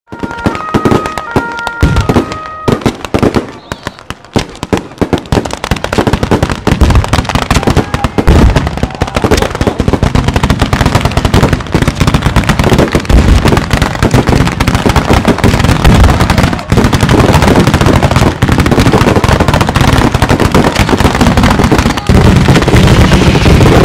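Ground-level firecracker barrage: a few short stepped tones at the start, then scattered bangs that build after a few seconds into a dense, almost continuous string of explosions with a heavy low rumble.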